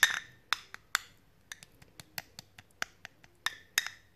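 A spoon clinking against a small dish while stirring a thick paste of grated garlic, ginger, honey and olive oil: irregular clinks, about three a second, each with a short ring, the loudest at the start.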